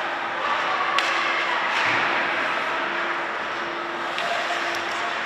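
Ice hockey play in a rink: skates scraping the ice with a few sharp clacks from sticks and puck, over a steady low hum from the hall.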